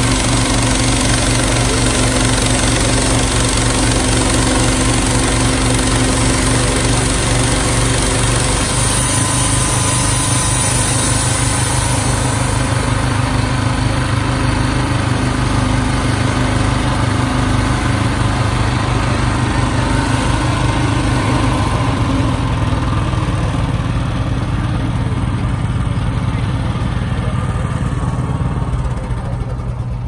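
Wood-Mizer LX55 portable band sawmill with its small engine running steadily while the band blade saws a board off a log. The engine note changes about nine seconds in, the high hiss of the cut fades after about twelve seconds, and the sound drops a little near the end.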